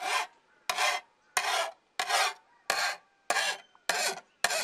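A hand file rasping across the back edge of a rusty steel spade in short push strokes, about eight in an even rhythm, sharpening the bevel.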